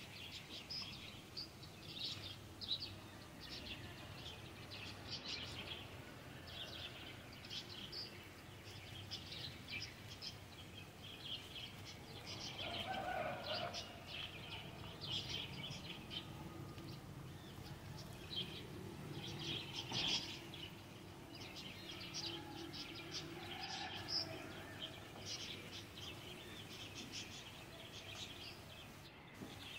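Beaten eggs frying in hot oil in a nonstick pan, a steady scatter of faint high crackles as they are stirred and scrambled with a silicone spatula.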